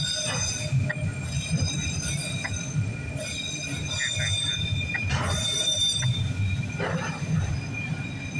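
Freight cars rolling past: a steady low rumble of wheels on rail, with high-pitched wheel squeal holding on several steady tones and a few sharp clicks of wheels over rail joints.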